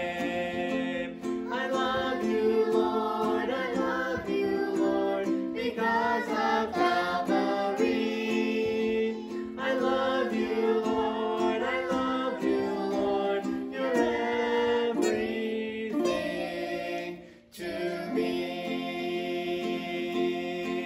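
A family of adult and children's voices singing a hymn together, accompanied by a strummed ukulele. There is a brief break in the music about three-quarters of the way through.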